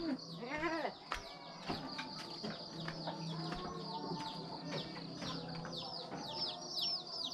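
Newly hatched chicks peeping continuously: many short, high, falling cheeps, several a second, with a few lower calls in the first second.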